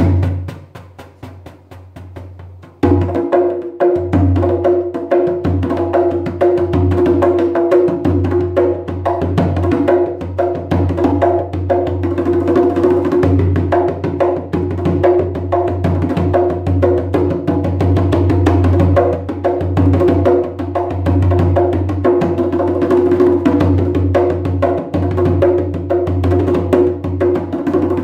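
Ceramic sombaty darbuka with a goat-skin head, warmed by a lamp inside the shell to tighten it, played by hand in a fast run of strokes with a deep ringing low note. The playing is softer for the first few seconds, then picks up into a steady, dense rhythm.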